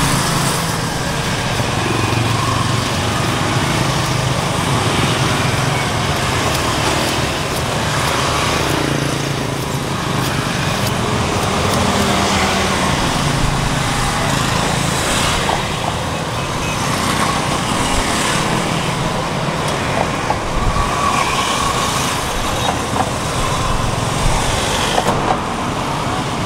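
Steady road traffic noise of passing motor vehicles, with a few light clicks.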